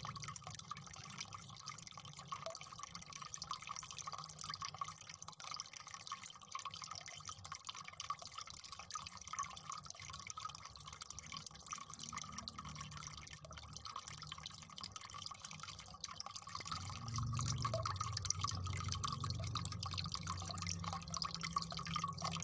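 Faint wet ticking and dripping as a water-soaked, swollen gel toy lobster is handled in the fingers, over a steady hiss. A low hum comes in about three-quarters of the way through.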